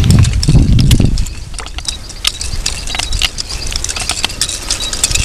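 Rock music ends about a second in, followed by irregular light clicks and taps over a quiet outdoor background.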